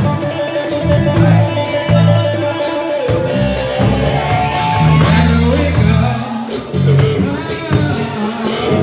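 Live band playing loud: a man singing into a microphone over electric guitar, low bass notes and a drum kit keeping a steady beat on the cymbals.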